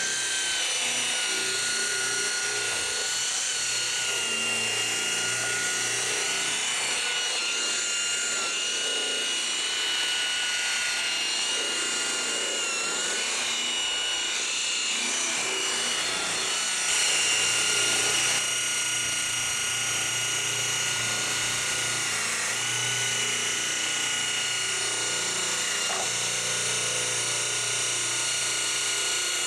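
DeWalt rotary polisher with a wool buffing pad running steadily on car paint: an even motor whine with the pad rubbing on the surface, its pitch dipping slightly now and then.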